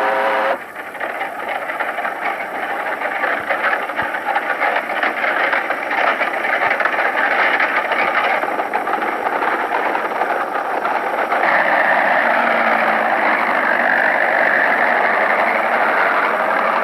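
A train running: a steady, loud, noisy rush with no clear beat, whose sound shifts about 8 seconds in and again near 11 seconds.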